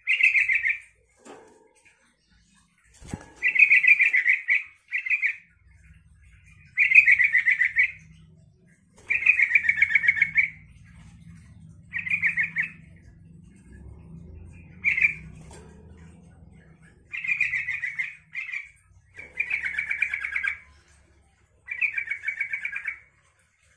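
Yellow-vented bulbul (trucukan) singing: about a dozen short, rapid, chattering song phrases, each half a second to a second and a half long, with brief pauses between.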